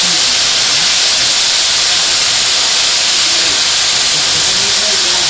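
Steady, loud hiss of shredded ash gourd sizzling in a hot pot as it is tipped in from a plastic basket.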